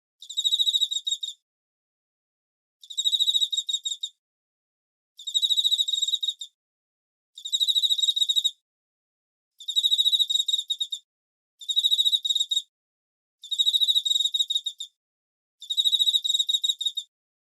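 Cricket chirping in repeated trills, each a rapid string of high pulses lasting about a second, coming about every two seconds with silence between.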